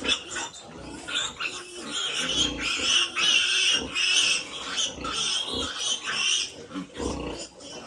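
Pigs squealing: a run of short, high-pitched squeals, one after another.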